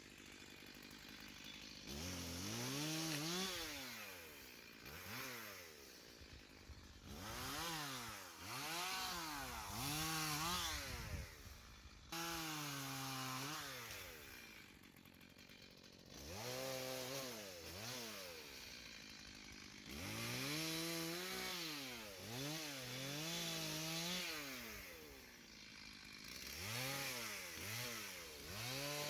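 Chainsaw revving up and down again and again as it cuts wood, with short drops back toward idle between cuts. It comes in about two seconds in.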